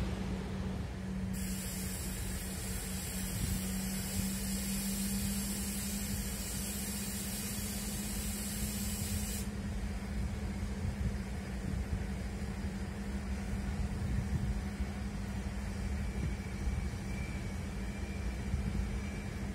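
Railway station ambience: a steady low hum and rumble, with a high hiss that starts about a second in and cuts off suddenly some eight seconds later. A faint high whine comes in near the end.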